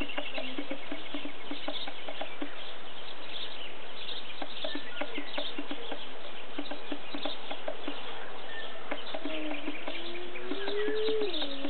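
Open countryside ambience: a steady hiss with many small ticks and chirps scattered through it, like insects and birds. Near the end comes a single long call that rises in pitch and then drops.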